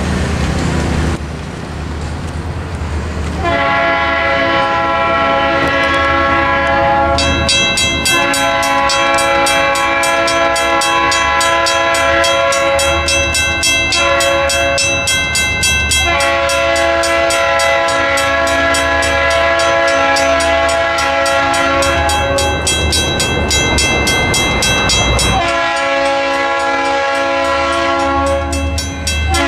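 Freight locomotive air horn sounding long blasts with short breaks as the train approaches the crossing. From about a quarter of the way in, the crossing's Western-Cullen-Hayes mechanical bell rings steadily with fast, even strokes.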